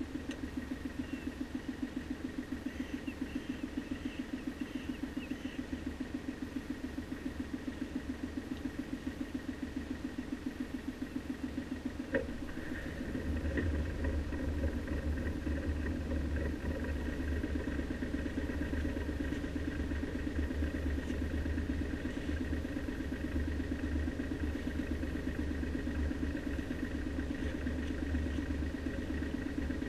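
A sailing yacht's inboard marine diesel auxiliary engine is running at low revs with an even pulsing beat while in neutral. About twelve seconds in there is a short clunk as the gearbox is put into ahead. After it the engine runs a little louder with a deeper rumble as it drives the propeller.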